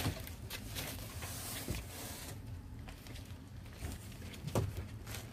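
Faint rustling of plastic wrapping and packaging as boxes are handled, with a couple of light knocks; the rustling dies down after about two seconds.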